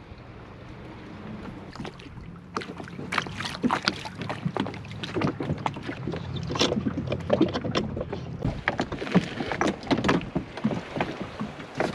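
Irregular knocks and clatter of gear being handled aboard a boat, over a low steady hum that stops about eight and a half seconds in.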